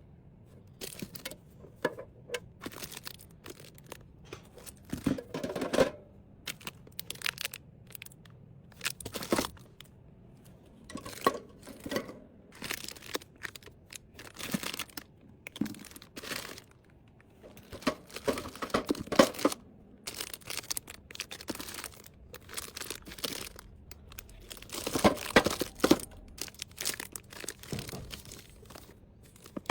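Plastic packaging being handled: irregular crinkling, rustling and tearing with scattered light clicks, in several louder spells.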